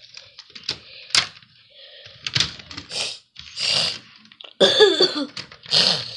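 A few sharp clicks of handled LEGO plastic, then a run of short breathy bursts and a throaty, cough-like sound from a person with a cold.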